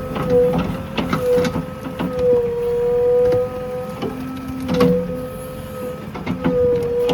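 JCB 3DX backhoe loader working, its engine and hydraulics running with a steady whine that wavers slightly in pitch, and irregular knocks and clanks through it.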